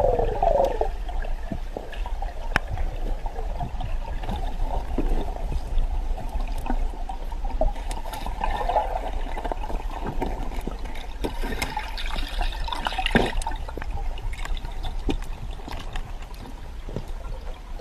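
Underwater sound from a camera in a waterproof housing during a dive: muffled water movement and rumble with scattered short clicks, a little louder near the end.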